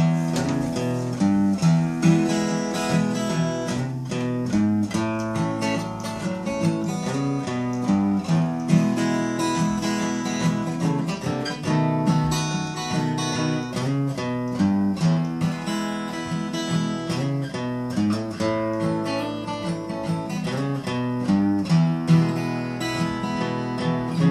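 Steel-string acoustic guitar played solo in a blues instrumental break, picked and strummed in a steady rhythm with no singing.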